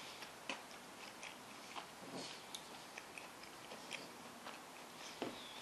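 Quiet chewing of baked macaroni and cheese, with faint scattered clicks of a metal fork digging into the foil-cupped muffin. A sharper click comes near the end.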